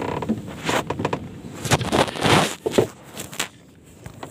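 Handling noise from a spinning rod and reel and clothing: an irregular run of clicks, scrapes and rustles, loudest about two seconds in.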